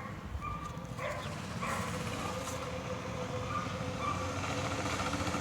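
Small motor scooter engine running steadily at low revs.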